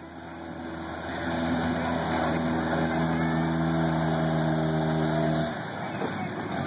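Jeep Wrangler engine pulling steadily under load as it drives through a muddy pond, with water splashing and spraying around the wheels. The engine note drops away about five and a half seconds in while the splashing goes on.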